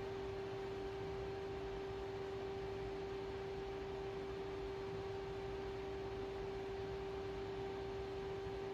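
A steady hum at one unchanging pitch, with a fainter overtone an octave higher, over a low hiss.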